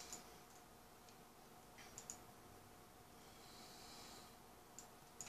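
Computer mouse clicking: about five sharp single clicks, including a quick double click about two seconds in, over a faint steady hum in a quiet room.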